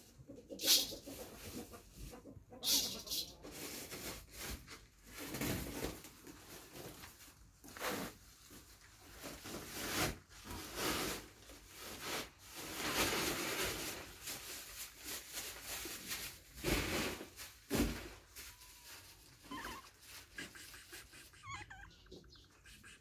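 A cat right at the microphone: irregular rustling and breathy noises, with a couple of faint short meows near the end.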